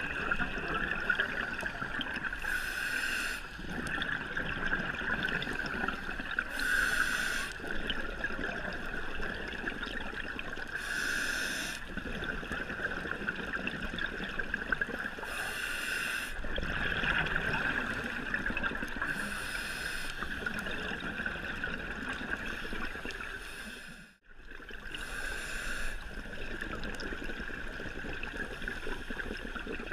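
Underwater audio of a scuba diver breathing through a regulator: a rush of exhaled bubbles about every four seconds over a steady underwater hum. The sound cuts out briefly about three-quarters of the way through.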